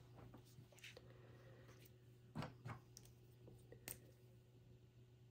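Near silence: a faint steady hum of room tone, broken by a few soft taps about two and a half seconds in and again near four seconds.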